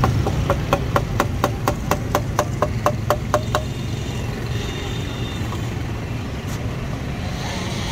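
Metal kulfi mould tapped rapidly with a metal utensil: an even run of ringing metallic taps, about four a second, that stops about three and a half seconds in. Steady road-traffic rumble underneath.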